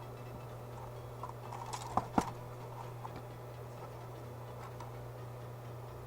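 Small clicks and taps of hand tools and wire being handled on a workbench during wire splicing, with two sharp clicks close together about two seconds in, over a steady low hum.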